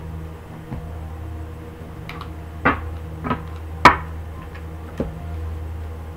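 Tarot cards being handled: a few separate sharp taps and slaps of the cards, the loudest about four seconds in, over a steady low hum.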